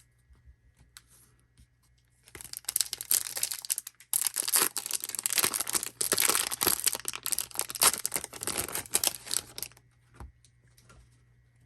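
Trading card pack wrappers being torn open and crinkled, loud and crackly, starting about two seconds in, pausing briefly, and stopping about ten seconds in.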